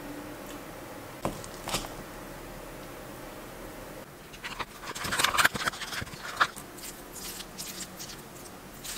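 A metal spoon scooping cooked rice from a stainless steel pot into a ceramic bowl, with a couple of light clinks, then scraping and clinking against the bowl as the rice is stirred, busiest about five to six seconds in.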